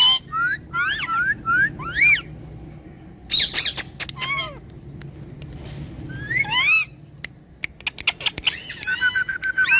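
Pet parrots giving groups of short, shrill squawks and chirps that sweep up and down in pitch. Past the middle comes a quick run of clicks, and near the end a steady, level whistle.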